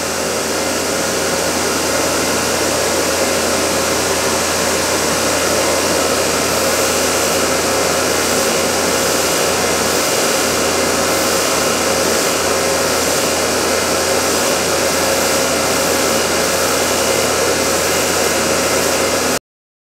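Steady loud whirring rush of a motor-driven workshop machine, cut off suddenly near the end.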